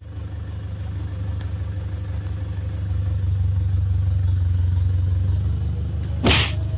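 Steady low rumble, with one short, sharp whoosh about six seconds in as a fishing rod is swung up hard to strike a biting fish.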